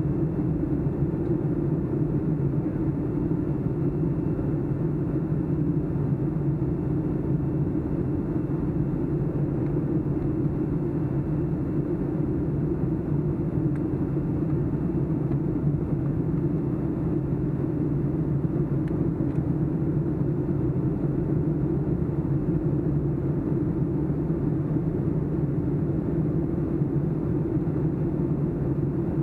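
Steady low drone of a Boeing 757-200's Rolls-Royce RB211 turbofan engines and the airflow around the fuselage, heard from a window seat inside the cabin during the climb after takeoff. The noise holds an even level and pitch throughout, with no clear high hiss.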